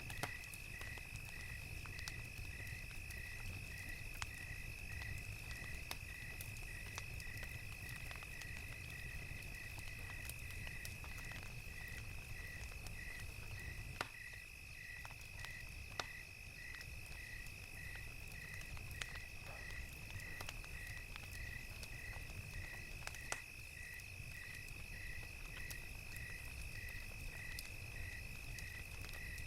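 Crickets chirping in an even rhythm, about one and a half chirps a second, over a steady high insect drone, with a crackling fire giving scattered sharp pops and a low rumble underneath.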